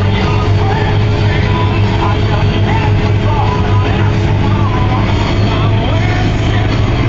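Rock music with singing, heard over the steady low drone of a combine harvester's engine.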